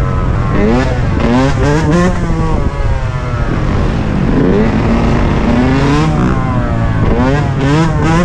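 Dirt bike engines revving hard. Their pitch climbs in quick repeated sweeps near the start and again near the end, with a lower engine note that falls and rises again in between.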